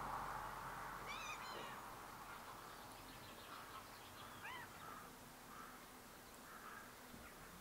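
Birds calling: a short run of harsh notes about a second in, a falling call about halfway through, then fainter calls. A rushing hiss fades out in the first second or two.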